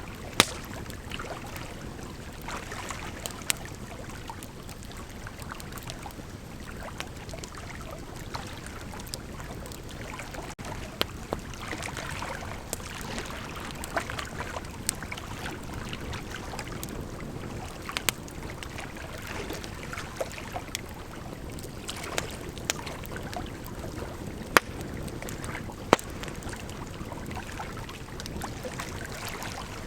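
Bonfire burning with a steady rushing hiss, crackling with irregular sharp pops, a handful of them much louder than the rest.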